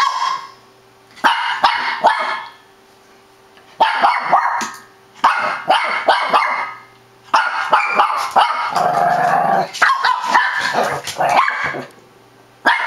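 Shih tzu barking in rapid bursts of several yaps each, broken by short pauses, about six bursts in all.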